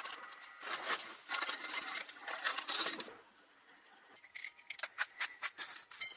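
Many small steel fishing hooks clattering and clicking against each other and a metal container as they are handled, in a dense run of clicks for about three seconds, then a pause, then a few separate clicks.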